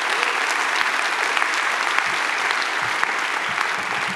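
Audience applauding: dense, steady clapping from a large crowd.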